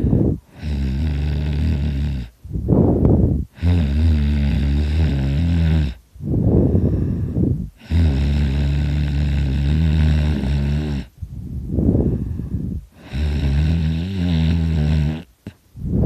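A sleeping man snoring loudly in a steady cycle: four long, low-pitched snores of two to three seconds each, with a shorter breathy rush of air between each one.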